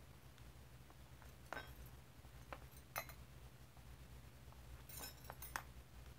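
Metal bangles on a drawing wrist clinking faintly a handful of times, with a brighter cluster of clinks about five seconds in, over a low steady hum.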